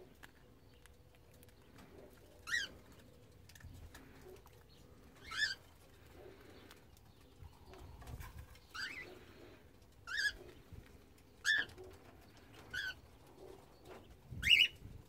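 Cockatiels giving short, separate calls, about seven of them one to three seconds apart, with the loudest near the end.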